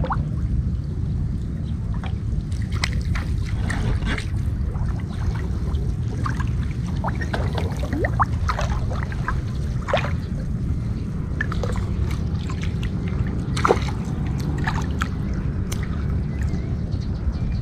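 Swamp water sloshing and trickling around a person wading and hauling up a lift net, with scattered drips and small splashes over a steady low rumble.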